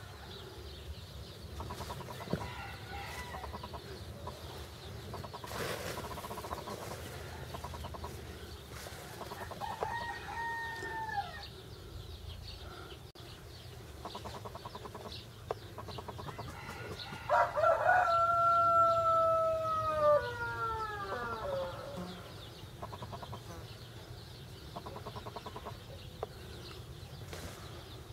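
Rooster crowing: a short call about ten seconds in, then one long, loud crow a little past halfway that drops in pitch at its end.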